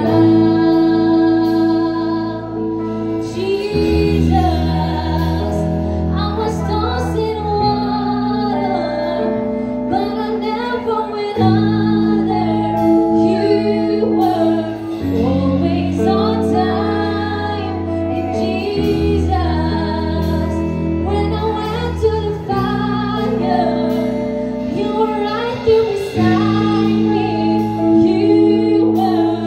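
Live worship band playing: a woman singing lead through a microphone and PA, with electric bass holding long notes that change every few seconds, electric guitar, and drums with cymbal strikes.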